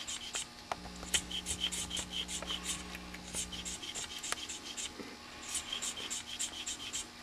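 Plastic pinewood derby wheel being turned in brisk, short strokes against the blade of a Pro Wheel Shaver XT2 hand-powered mini-lathe: rapid light scraping, several strokes a second, as the blade shaves the tread to true the wheel round. The strokes thin out briefly a little past the middle.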